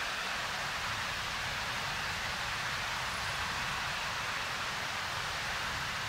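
Waterfall pouring into its plunge pool: a steady rushing of falling water, even throughout.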